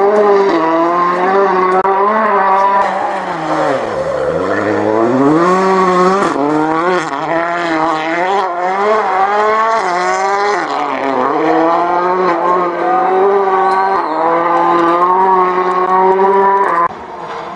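Rally car engine at full stage pace, revs climbing through the gears and falling again and again, with deep drops in revs about four seconds in and again near eleven seconds. The sound falls off sharply near the end.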